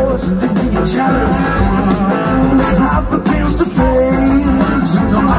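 Large blues-rock band playing live, with drums and electric guitar, heard from the audience through the venue's PA.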